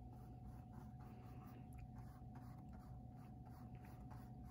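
Near silence: faint scratchy strokes of a small paintbrush dabbing and dragging paint across a canvas, over a steady low hum.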